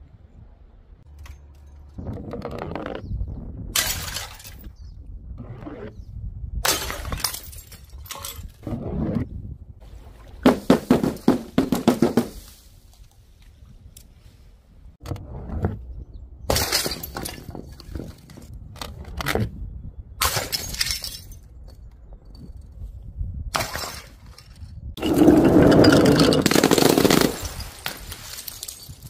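A series of separate crashes as objects, glass bottles among them, hit paving tiles and smash, with breaking glass and splatter. There are short gaps between the crashes. A quick run of smashes comes about ten seconds in, and the loudest, longest crash comes near the end.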